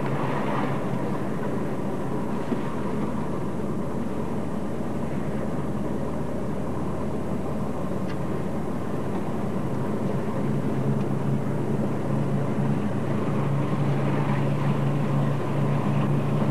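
Engine and road noise of a moving car heard from inside the cabin: a steady low drone that grows a little louder in the second half.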